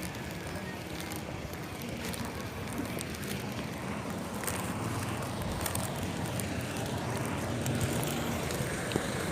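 Steady wind noise on the microphone with road and traffic noise while travelling outdoors.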